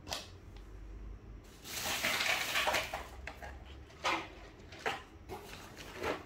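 Handling noise of small objects being rummaged through: a scraping rustle lasting about a second, then a few short clicks and knocks.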